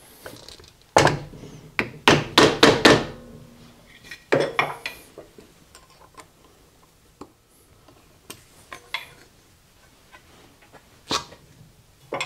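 Hand tools knocking and clinking on the drill press motor's pulley while the out-of-line pulley is realigned and its set screw worked with an Allen key. A quick run of sharp metallic knocks comes about one to three seconds in and another about four seconds in, then lighter single clicks.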